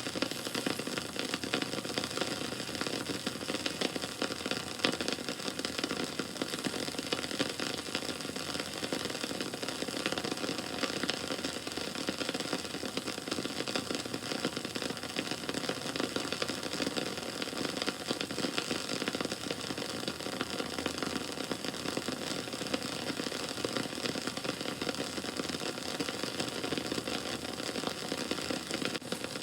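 Wood bonfire burning, with a steady dense crackle of many small pops and snaps over the hiss of the flames.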